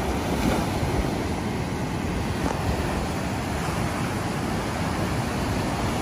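Ocean surf breaking and washing up the sand in a steady rush, with wind rumbling on the microphone.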